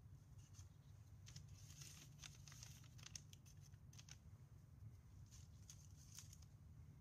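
Faint taps and paper rustles of hands setting small ball-shell hemispheres down and moving things about on a kraft-paper-covered workbench, in two short clusters over a low steady hum.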